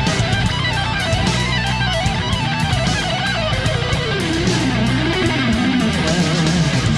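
Background rock music led by electric guitar, with a wavering lead melody over held bass notes and a steady drum beat.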